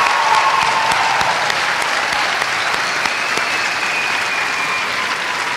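Audience applauding in an auditorium, with a few drawn-out whoops over the clapping.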